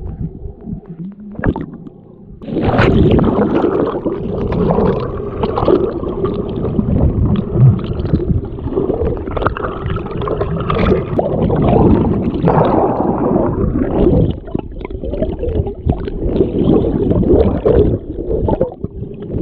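Muffled gurgling and rushing of fast river water heard on a camera microphone underwater, with uneven surges and bumps. It jumps from a quieter hum to loud rushing about two and a half seconds in.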